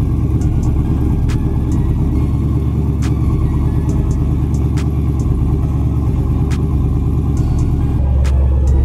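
Chevy Silverado's 5.3-litre V8 idling steadily through long-tube headers and a 3-inch true dual exhaust with Flowmaster FX mufflers: a deep exhaust rumble. About eight seconds in it gets louder and deeper as it is heard up close by the exhaust.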